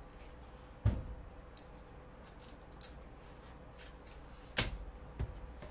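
Scattered clicks and soft knocks from gloved hands handling trading cards and a clear plastic card holder on a table. The loudest knocks come about a second in and again near the end.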